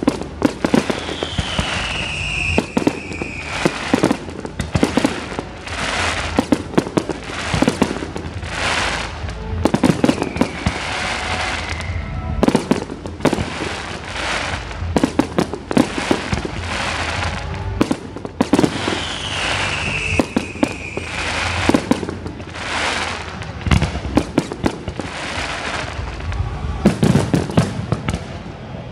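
Aerial fireworks display: shells bursting overhead in a rapid, irregular run of loud bangs, with a falling whistle heard twice.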